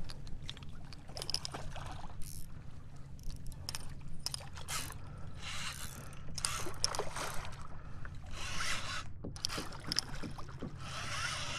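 Fishing reel being cranked with its gears and drag ratcheting while a hooked red drum is played, with bursts of splashing from the fish at the surface. A steady low rumble runs underneath.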